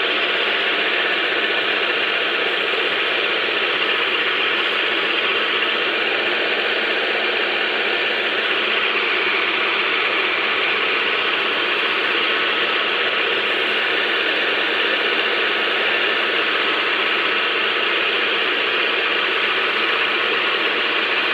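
Woodturning lathe running steadily with a rattly mechanical sound as the wooden dhol shell spins on it.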